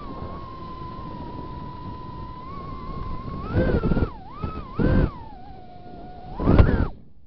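Small quadcopter drone's motors and propellers whining at a steady pitch, then swinging up and down in pitch with three loud surges as it drops low and tilts over. The whine cuts off suddenly near the end as the drone goes down.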